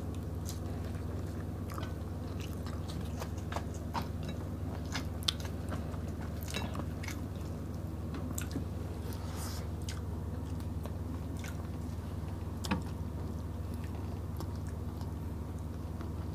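Close-up chewing and wet mouth clicks from people eating smoked fish and rice by hand: scattered short sharp clicks, the loudest about five seconds in and again near thirteen seconds, over a steady low hum.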